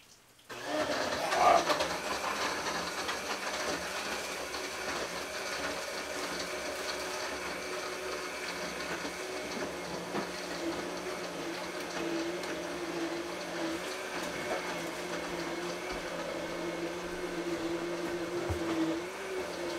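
Electric blender running steadily, blending pineapple into a piña colada. It starts suddenly about half a second in and holds an even whirring hum.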